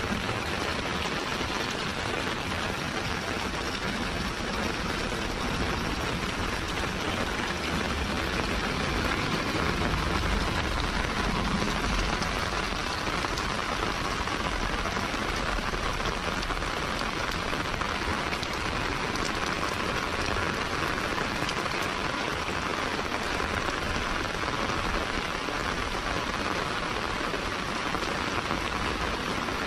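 Heavy rain falling steadily on a wet paved lane and surrounding walls, an even, unbroken hiss of countless drops.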